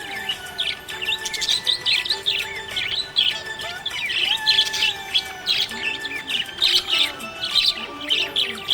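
Small pet parrots chirping rapidly and continuously, many short high chirps crowding one after another.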